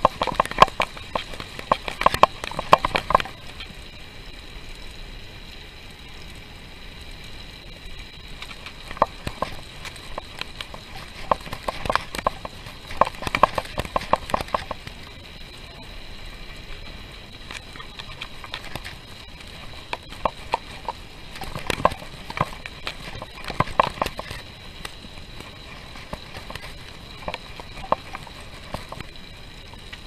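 Bicycle on a downhill run, rattling in bursts of quick clicks as it goes over bumps, with a faint steady high tone underneath.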